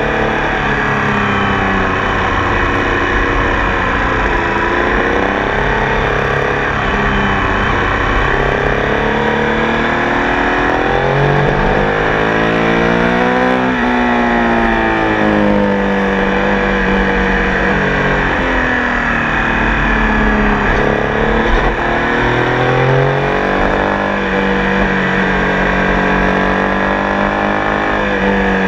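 Triumph Tiger Sport 800's three-cylinder engine on a ride, its pitch repeatedly climbing under acceleration and dropping back through gear changes and roll-offs.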